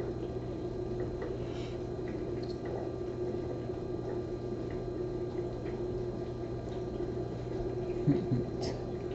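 A steady low hum with a few faint scattered ticks, and a brief knock about eight seconds in.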